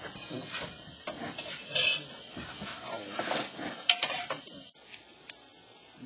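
Dishes and utensils clattering: irregular clinks, knocks and scrapes, with a louder knock about four seconds in. The clatter stops abruptly near the end, leaving a steady background hiss.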